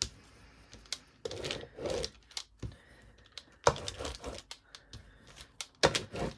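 Rubber brayer rolled back and forth over crumpled brown packaging paper: the stiff paper crackles and rustles in uneven bursts with sharp little clicks, each pass of the roller loudest.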